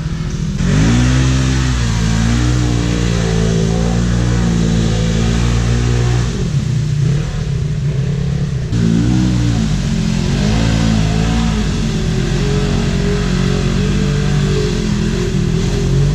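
Side-by-side UTV engine revving: the pitch climbs sharply about half a second in and holds, falls away around six seconds, then climbs again around nine seconds and runs steady at high revs.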